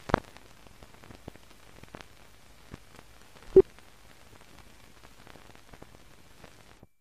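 Old optical film soundtrack with no program sound: faint hiss with scattered crackles and clicks. Two louder pops stand out, one just after the start and a sharper one about three and a half seconds in, and the sound cuts off to dead silence near the end.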